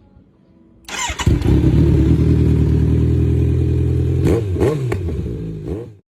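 Inline-four sportbike with an Austin Racing aftermarket exhaust starting from cold: a brief burst of starter cranking about a second in, then the engine catches and settles into a loud, steady high idle. Two quick throttle blips follow near the end, and the sound cuts off suddenly.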